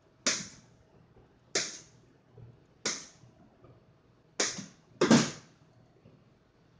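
A large kitchen knife chopping down through a block of puff pastry dough and striking the stainless steel worktable beneath, five sharp strokes about a second and a quarter apart, the last two closer together and loudest.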